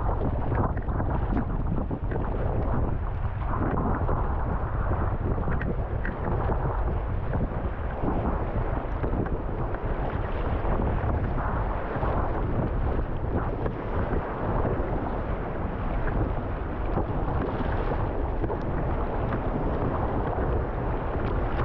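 Gale-force wind buffeting the microphone without let-up, over rough sea water washing around a sea kayak.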